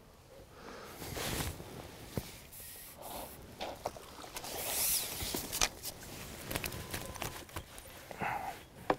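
Quiet, scattered clicks and knocks of a fishing pole and tackle being handled as a small hooked fish is played and netted, with a brief rush of noise about five seconds in.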